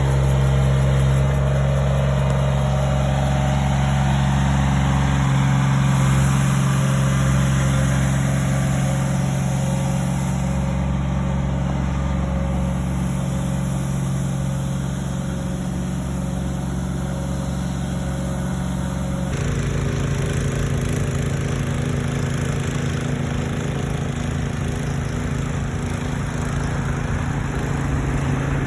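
Steady engine drone of a commuter train's diesel engine, a low hum holding several fixed tones, whose note shifts abruptly about two-thirds of the way through.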